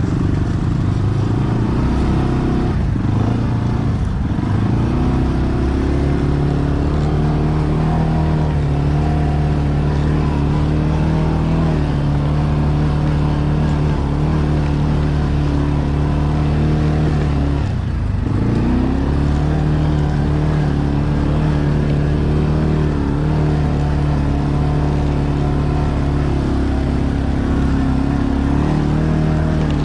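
ATV engine running at steady revs, with a short drop in revs and a pickup again about two-thirds of the way through.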